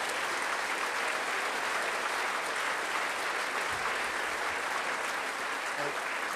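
Audience applauding steadily at the end of a piece.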